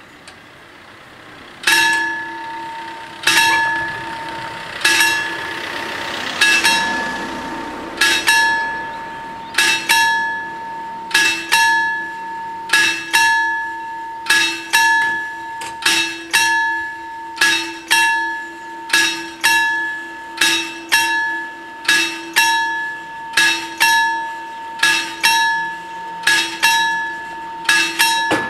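The two warning bells of an Italian level crossing ringing: metallic strikes that each ring on. A single bell starts about two seconds in, and from about eight seconds the second bell joins, so strikes come in close pairs about every one and a half seconds. The ringing warns that a train is coming and the barriers are coming down.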